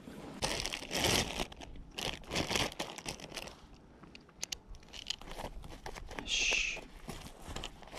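Close handling of fishing gear: rustling and crinkling of a fabric rod bag and other kit. There are two sharp clicks about four and a half seconds in, and a short rip a couple of seconds later.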